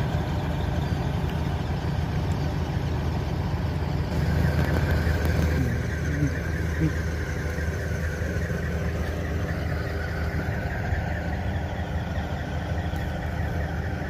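An engine running steadily at an even speed, a constant low hum.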